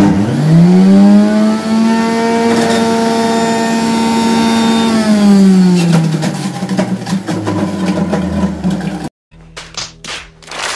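Electric kitchen juicer motor switched on and spinning up with a rising whine, running steadily for about five seconds, then switched off and winding down with a falling pitch. Clicks and rattles of the juicer's parts follow near the end.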